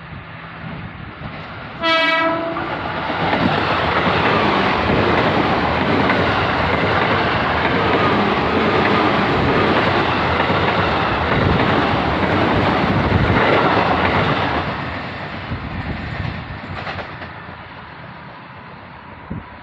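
KRL commuter electric multiple-unit train giving one short horn blast about two seconds in, then passing close by with loud running noise and wheel clatter on the rails for about twelve seconds, fading away as it departs.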